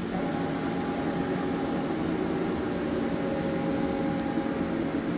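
ROMI C510 CNC lathe running: a steady machine hum with a thin whine over it that comes in just after the start and shifts to a lower pitch partway through.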